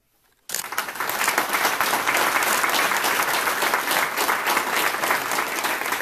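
Room of people applauding, starting suddenly about half a second in and going on steadily.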